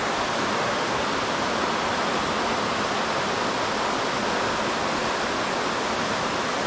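Creek water rushing steadily through a run, an even hiss that does not change.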